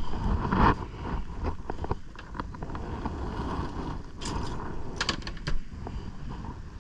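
Wind rumbling on the microphone, with scattered clicks and knocks from gear being handled in the back of a vehicle among plastic buckets. A cluster of sharper knocks comes about four to five and a half seconds in.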